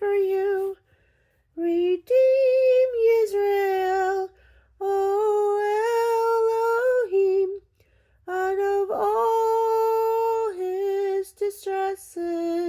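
A mezzo-soprano woman singing long held notes in phrases of one to three seconds, with short silences between them.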